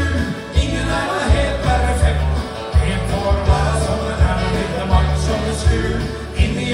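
Country-style music with a steady beat and bass line, and a man singing live over it into a handheld microphone.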